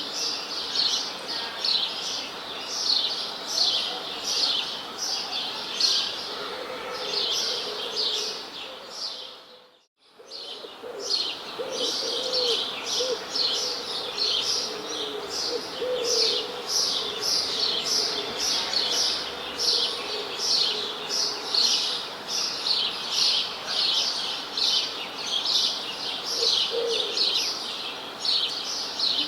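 Many small birds chirping in a dense, continuous chorus of rapid high-pitched notes, with a few lower calls underneath. The sound fades out almost to silence about ten seconds in and fades straight back in.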